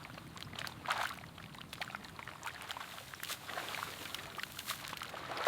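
Faint sloshing and splashing in shallow muddy paddy water, with many scattered small clicks and a few slightly stronger splashes.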